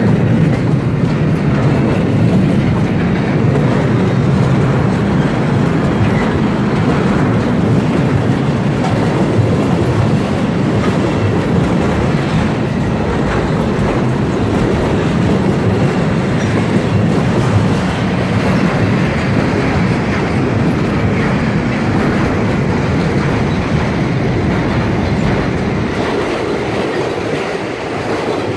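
Empty double-deck car-transporter freight wagons rolling past at close range: a steady noise of steel wheels running on the rails, a little quieter near the end.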